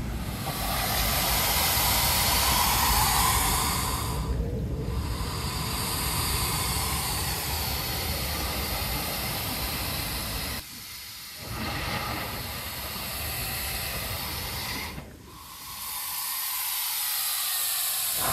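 Air hissing in and out of a crack in coastal lava rock as the surf pushes and draws it, in four long breaths with a short pause between each, over the low rumble of the waves.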